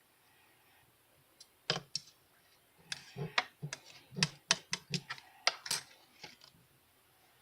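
An irregular run of about a dozen sharp clicks and taps, starting about a second and a half in and stopping near the end.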